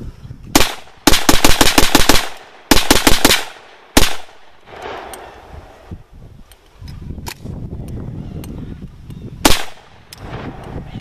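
AK-47-pattern rifle, an M+M M10 in 7.62x39 mm, being fired: a single shot, then a rapid string of about ten shots, a shorter string of about five, and two more single shots several seconds apart.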